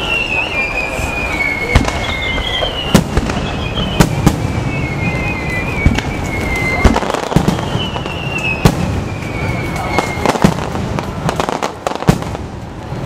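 Aerial fireworks display: a run of sharp bangs and crackling bursts, with three long whistles that slowly fall in pitch.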